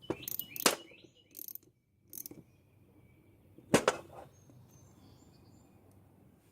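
A handful of sharp, irregular metallic clicks and taps from hand tools and engine parts being handled while a clutch is fitted to a nitro RC engine, the loudest a single click near the middle.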